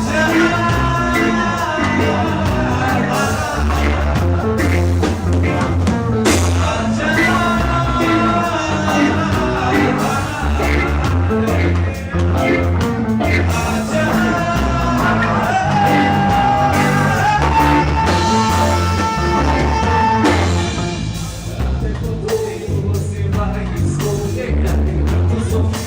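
Band music with a singer over a steady bass and drum beat, a long note held for a few seconds past the middle.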